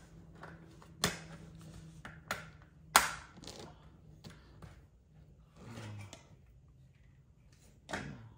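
Snap-together model train track sections clicking and clacking as they are handled and pushed together, a few sharp clicks spread out with the loudest about three seconds in, and a short rustle near six seconds.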